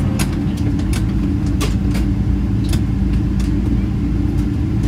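Cabin noise of a Boeing 777-200ER taxiing: a steady low rumble from the engines and airframe with a low hum, broken by irregular clicks and knocks.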